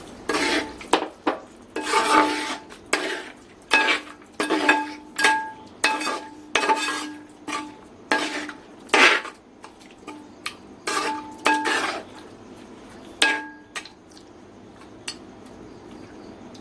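A metal spoon scraping and knocking against a metal cooking vessel, with repeated ringing clinks, while almond and cashew paste is scraped into the chicken curry. The clinks stop a few seconds before the end.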